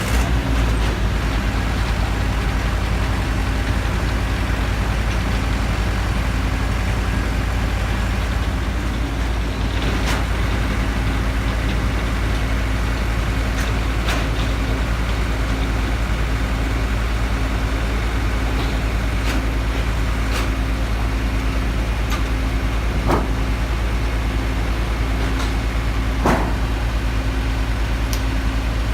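A heavy engine running steadily with a low rumble and a constant hum, with a few sharp clunks and clicks scattered through it, typical of machinery working during aircraft cargo loading.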